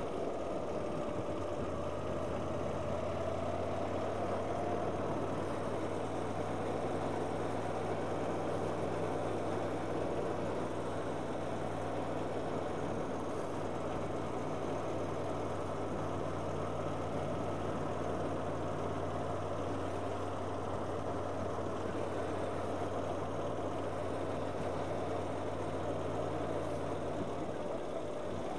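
Motorcycle engine running at a steady, even speed under a constant rushing noise of wind and road. The low engine hum sets in about two seconds in and holds without change until near the end.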